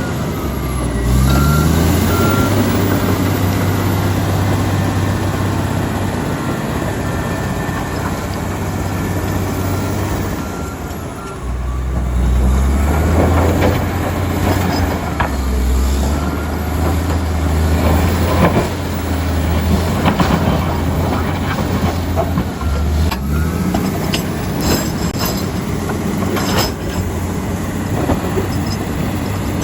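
Komatsu D85EX bulldozer's diesel engine working hard, rising in pitch just after the start and easing off briefly about eleven seconds in before pulling again. Through the second half come repeated sharp metallic clanks and knocks.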